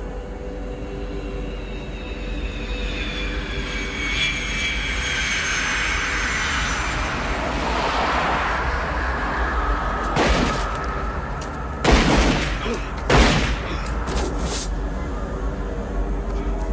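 Jet airliner passing low overhead on landing approach, its engine whine falling in pitch as it goes by. Near the end of the pass come three sudden loud blasts, a few seconds apart.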